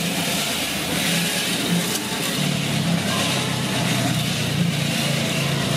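A motor running with a steady low hum over a constant street noise.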